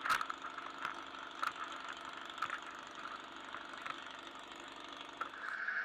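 VW race car's engine idling, heard from inside the cabin, with irregular knocks from a gloved hand handling the in-car camera. A louder steady high-pitched tone sets in near the end.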